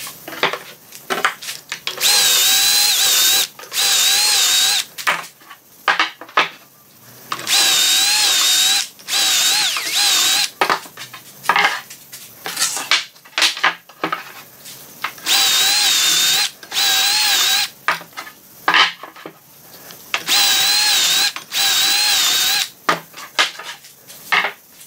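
Cordless drill boring confirmat screw holes into the edges of 18 mm melamine chipboard panels through a drilling jig. It runs in eight short bursts of about a second each, coming in pairs, with a steady whine that wavers slightly as the bit cuts. Clatter of the panels and jig being handled comes between the bursts.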